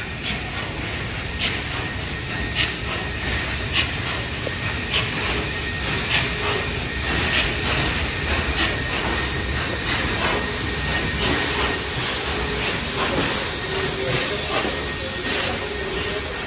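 NSW 59 class steam locomotive 5917 rolling slowly into a station platform: a steady rumble with steam hissing, and regular sharp clicks about every second that come quicker as the engine draws alongside.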